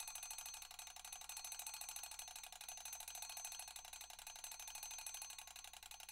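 A rapid, steady run of mechanical clicks, many a second.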